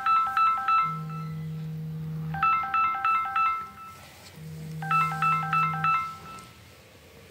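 Background music: a short run of quick, bright high notes repeats about every two seconds, with a held low note sounding between the runs; it fades out near the end.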